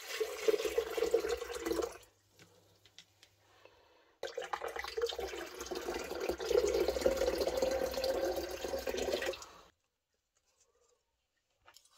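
Water poured from a plastic jug into a plastic blender jar, splashing and filling, in two pours: a short one at the start and a longer one from about four seconds in, stopping near the end.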